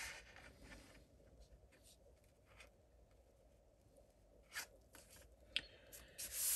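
Hands pressing and smoothing a freshly glued paper insert onto the inside of a cardstock card: faint paper rustling, quiet in the middle, with a few short rubs from about four and a half seconds in and a longer one near the end.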